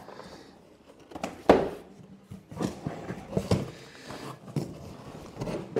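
Cardboard packaging being handled and moved: a sharp knock about one and a half seconds in, then scattered taps and cardboard rustles and scrapes.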